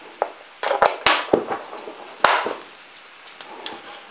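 Small metal antenna connectors and cables clicking and clinking as they are plugged into an antenna amplifier unit on a drone remote controller: a handful of sharp separate clicks and knocks, the loudest a little over two seconds in.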